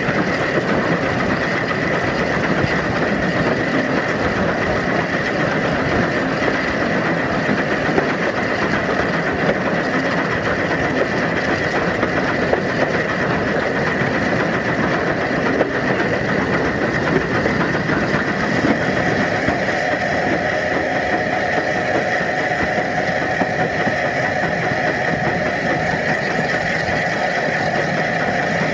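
Train moving along the line behind SR Q class steam locomotive 30541, heard from close by: a steady rumble and clatter of wheels on the rails, with a steady high whine over it.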